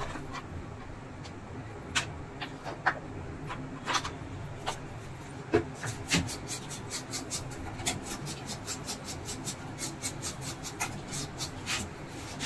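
Sharp clicks and light taps from handling small plastic and circuit-board parts, scattered at first and then quickening to several a second about halfway through, over a low steady hum.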